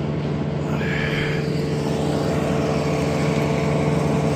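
Vehicle engine running with a steady low drone.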